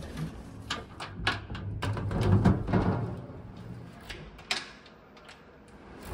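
A wooden door being worked: clicks of the lever handle and of a key turning in its deadbolt lock, with a louder low knocking of the door about two to three seconds in and a sharp lock click about four and a half seconds in.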